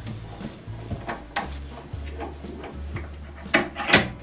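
Small clinks and knocks of hard objects being handled on a workbench, with two sharper clacks close together near the end, over a low steady hum.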